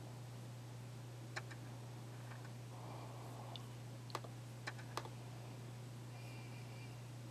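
A few faint, scattered clicks from a laptop being used to browse, four or so spread over several seconds, over a steady low hum.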